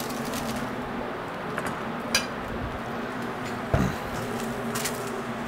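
A few light knocks and clicks of bowls and utensils being handled on a steel kitchen worktop, over a steady low hum; the clearest knock comes a little before four seconds in.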